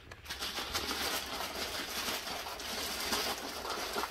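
Plastic mailer bag crinkling and rustling as it is torn and pulled open by hand.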